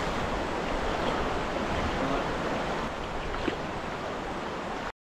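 Steady rushing noise of river water, with some wind on the microphone. It cuts off abruptly to dead silence near the end.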